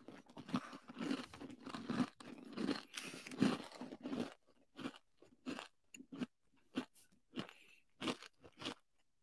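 Close-up chewing of a crunchy peanut butter granola bar. Dense crunching for about four seconds, then single crunches about twice a second as the bites are ground down.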